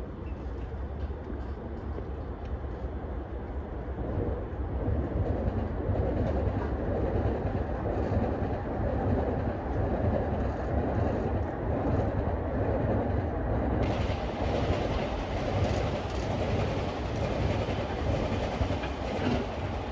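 Steady rumble of trains in a railway station yard, growing louder about four seconds in and holding there.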